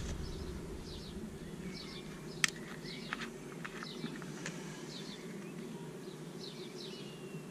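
Small birds chirping in short repeated calls over a steady low buzz, with a few sharp clicks about two and a half and three seconds in.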